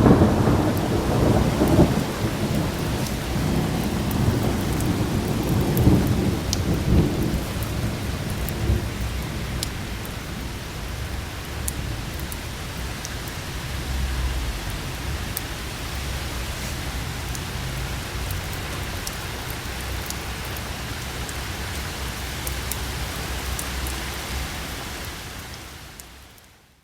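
Thunderstorm: thunder rumbling loudest over the first several seconds, then a lower rolling rumble under steady rain with scattered sharp drop ticks. The sound fades out near the end.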